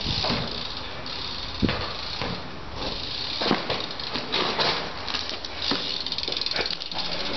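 A BMX bike being ridden hard on tarmac: steady rolling and hub noise with several sharp knocks as the bike hops and lands on a kerb, the loudest about a second and a half in.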